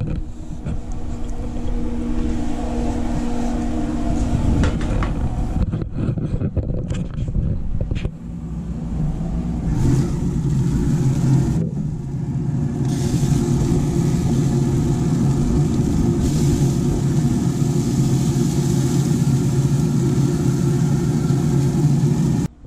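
Rough handling rumble, then from about eight seconds a steady mechanical hum with a hiss over it.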